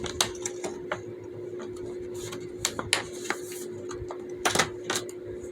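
Fidget toy being handled and worked, giving irregular clicks and taps, with a few louder knocks, over a steady low hum.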